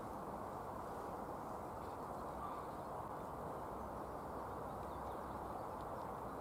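Quiet outdoor ambience: a steady low rush of background noise, with a faint bird call about two and a half seconds in.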